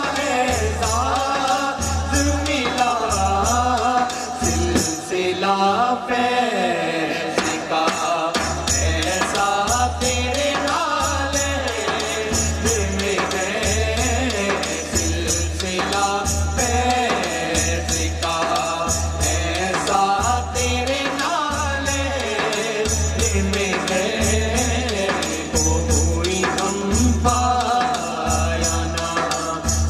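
Qawwali: male voices singing a devotional song with a chorus, over a deep drum beat about once a second and a fast rattling percussion. The deep beat drops out about five seconds in and comes back some three seconds later.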